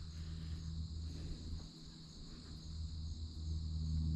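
Crickets chirping in a steady high trill, with a low steady hum underneath.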